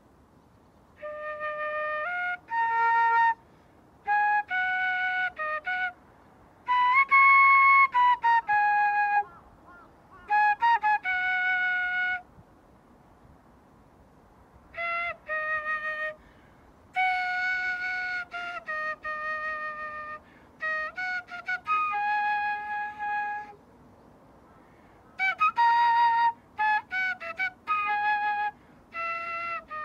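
A wind instrument playing a slow melody of held notes in short phrases, with pauses of a second or two between them.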